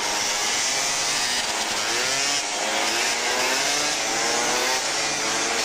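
Small two-stroke scooter engine running at a steady buzz, then revving in short rising sweeps about every half second from around two seconds in.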